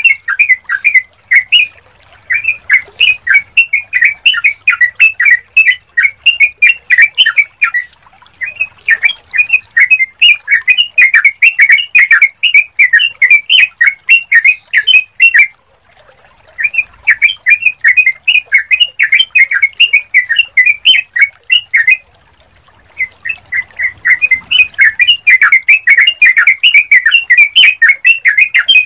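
Yellow-vented bulbul singing a long run of rapid chirping notes, breaking off briefly twice, about halfway through and again about two-thirds of the way through.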